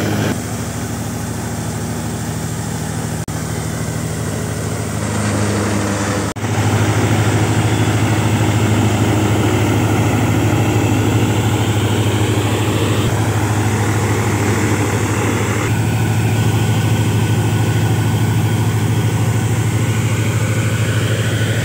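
Tractor-driven wheat threshing machine running steadily with a low, even engine drone. The sound changes abruptly a few times.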